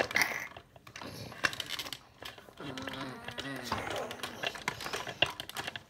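Plastic toy dinosaurs clicking and knocking against each other and the floor as they are made to fight, with a low growling voice for about a second around three seconds in.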